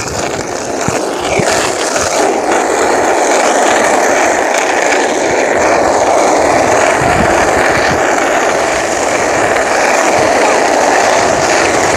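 Plastic Penny board's polyurethane wheels rolling fast over asphalt: a steady, gritty rolling rumble that builds over the first second as the board picks up speed.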